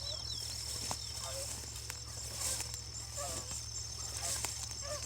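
Hounds baying faintly and on and off as they run a track, with small bird chirps and a steady high thin whine behind.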